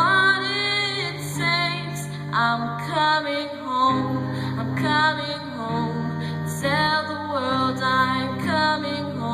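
Female solo vocalist singing live, sliding between long held notes, over sustained instrumental accompaniment.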